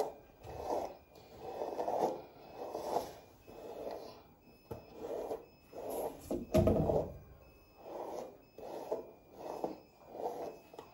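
A hairbrush pulled through thick curly hair in repeated strokes, about one a second, with a louder bump about six and a half seconds in.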